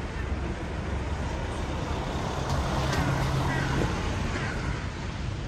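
Road traffic with a steady low rumble of vehicles. An engine hum swells in the middle and drops away just before four seconds in.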